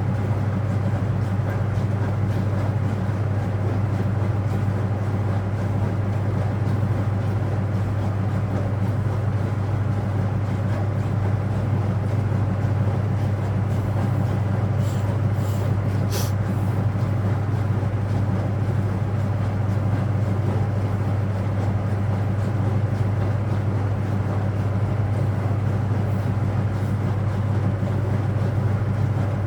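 Speed Queen top-loading washer in its spin, running with a steady low hum.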